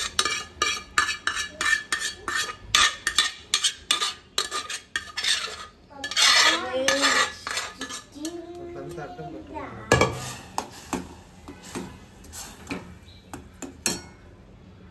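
Steel spatula scraping and clinking against a small stainless-steel saucepan as moong dal is stirred in hot ghee, several quick strokes a second. About halfway through, a liquid is poured into the pan from a steel vessel, and then the stirring resumes.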